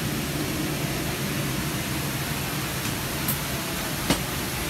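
Steady rush of aircraft cabin air conditioning with a low hum underneath, and a single sharp click about four seconds in.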